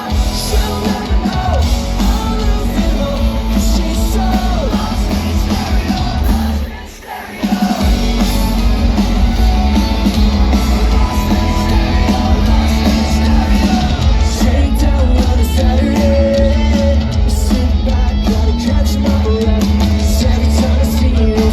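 Pop-punk band playing live: loud drums, electric guitars and bass under a sung lead vocal. The band drops out for about a second, about seven seconds in, then comes back in full.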